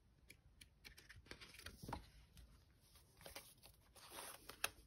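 Faint paper rustling and soft flicks of sticker-book pages being leafed through and handled, with a couple of sharper paper snaps near the end.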